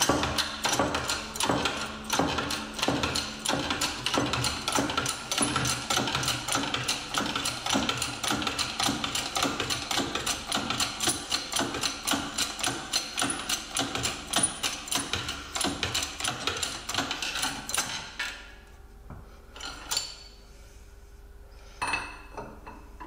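Ratchet clicking steadily, about four clicks a second, as it turns the screw of a ball-joint press-and-pull cup tool to press the joint out of the suspension arm. The clicking stops about 18 seconds in, leaving a faint hum and a couple of single knocks.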